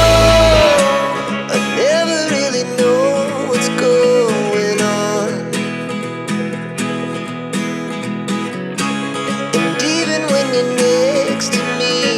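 Background music with a plucked acoustic guitar and a sung or melodic line over it. The heavy bass drops out less than a second in.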